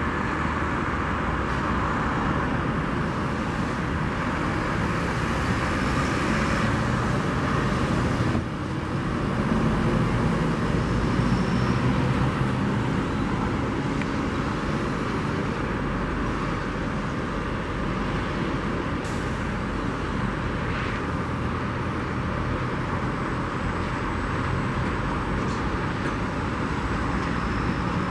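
Steady jet engine noise from airliners taxiing at low thrust, an even rumble and hiss with a brief dip about eight seconds in.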